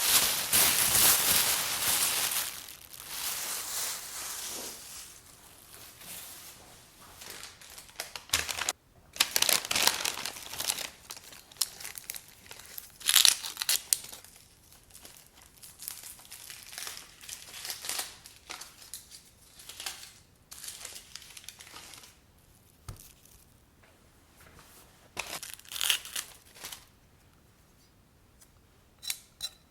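Crinkly wrapping being handled and crumpled in irregular rustling bursts, loudest in the first few seconds and again about halfway through, with quieter stretches between.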